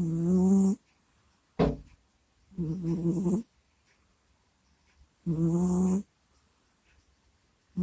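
A sleeping cat snoring close to a microphone: three moaning snores with a low hum-like pitch, about two and a half seconds apart, with a short snort between the first two and another snore starting at the very end.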